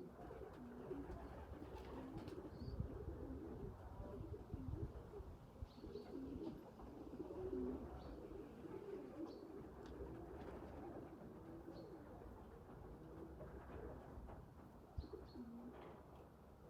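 Domestic pigeons cooing, several calls overlapping without a break, with a few short high chirps here and there.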